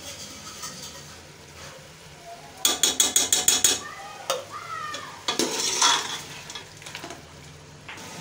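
Steel ladle stirring pieces of meat in an aluminium pressure-cooker pot, with a rapid run of metal clinks against the pot wall about a third of the way in and a longer scrape after the middle, over a low sizzle of the meat frying.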